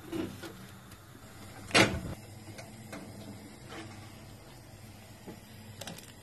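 A few knocks on a gas stove's metal grate as a whole eggplant is set down on it: a soft knock at the start, one loud short clatter about two seconds in, then a few faint clicks.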